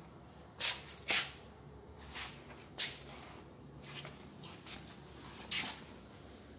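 About six short, irregularly spaced scuffing, rustling noises from someone moving about while filming, the loudest two about a second in, over a faint low hum.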